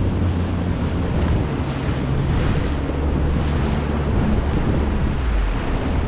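Wind buffeting the microphone over a steady rush of sea water.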